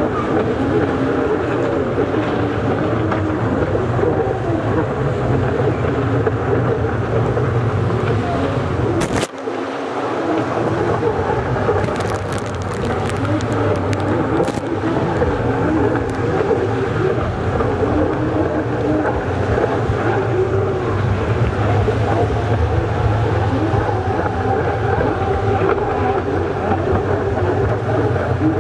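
Jet ski engines running hard at racing speed, their pitch wavering up and down as the craft pass and turn, with a brief drop in sound about nine seconds in.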